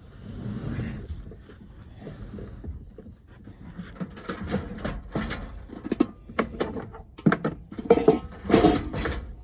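Camp cooking gear being handled: a soft rustle, then a run of irregular knocks and clatters, some briefly ringing, busiest near the end.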